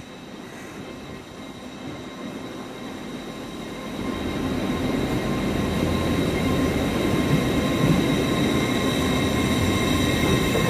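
A passenger train approaching on the rails, its rumble growing steadily louder, with a steady high-pitched whine over it.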